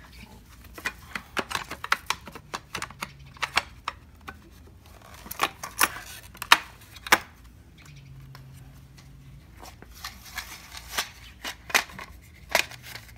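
Hard plastic parts of a Speed-Tie assembly clicking and knocking as they are handled and pressed together, in irregular sharp clicks, some louder than others.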